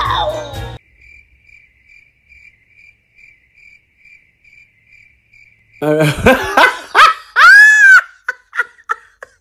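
Faint cricket-chirping sound effect, a soft high chirp repeating about two to three times a second: the stock 'crickets' gag for an awkward silence. A short falling cry comes just before it, and loud vocal sounds rising and falling in pitch take over about six seconds in.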